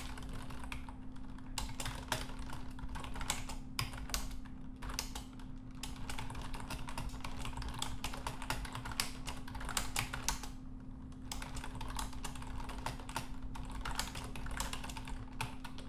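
Typing on a computer keyboard: quick, irregular runs of keystrokes with short pauses between them, over a faint steady hum.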